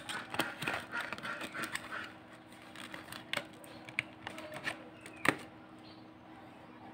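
Stiff clear plastic packaging crinkling and crackling as it is pulled and torn by hand. Dense crackles for about two seconds, then scattered clicks, with one sharper snap about five seconds in.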